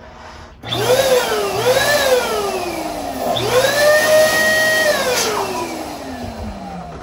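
Air squealing out through the stretched neck of a latex balloon, a hissy, pitched whine that wavers up and down. A second, longer squeal begins about halfway through and falls steadily in pitch as the balloon empties.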